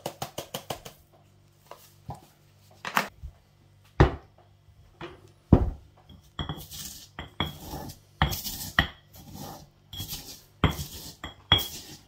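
Granite mortar and pestle. It opens with a quick run of small ticks, then comes a few hard, separate knocks of the stone pestle, the loudest about four and five and a half seconds in. The second half is a series of gritty crushing and grinding strokes.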